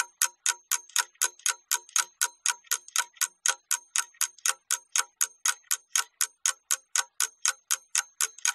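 Ticking clock sound effect, even ticks about four a second, marking the time given to complete a task.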